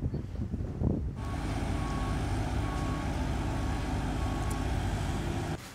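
Skid-steer loader engine running steadily, with its reversing alarm beeping repeatedly. It starts abruptly about a second in and cuts off shortly before the end.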